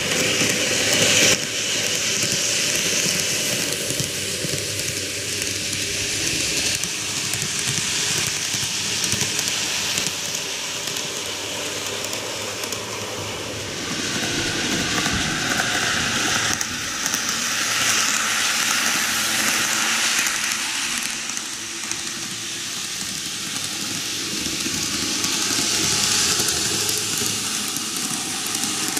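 N-gauge model trains running on TOMIX superelevated track: a steady hiss-like rolling noise of the trains going round the layout. It swells and fades, and grows louder near the end as a train approaches.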